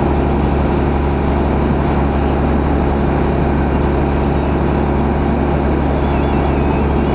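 Fire rescue truck's engine idling steadily, heard from inside the cab, with a constant low hum.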